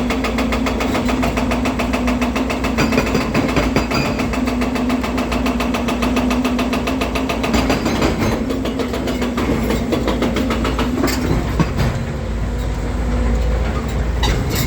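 Volvo EC300DL excavator's diesel engine running steadily, with a constant low hum and a fast, even clatter that eases about eight seconds in.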